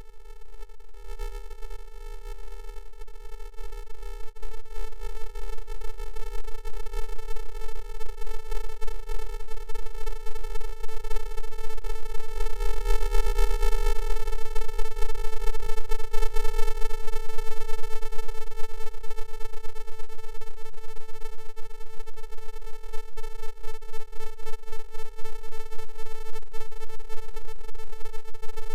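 A steady electronic buzzing tone held on one pitch with many overtones, growing louder over the first several seconds and then holding.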